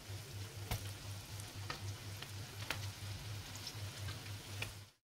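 Oat-and-apple fritters frying in vegetable oil in a pan: a faint steady sizzle with a few sharp ticks now and then.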